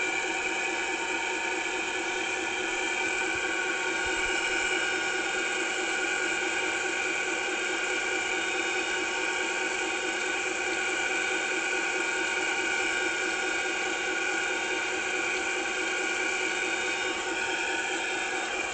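Battery-powered toy train's small motor and gearbox whirring steadily as it runs.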